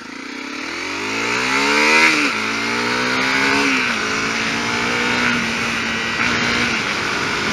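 Honda CRF250L's single-cylinder four-stroke engine accelerating hard through the gears: revs climb, drop at an upshift about two seconds in, climb again and drop at a second upshift near the middle, then hold steady at cruising speed, with wind rushing past.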